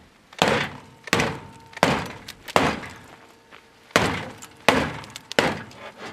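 Boker Vox T-Hawk carbon-steel tomahawk chopping into the sheet-metal edge of a car hood: a run of about seven sharp metal-on-metal strikes, roughly one every three-quarters of a second with a short pause midway, one strike leaving a brief ringing tone.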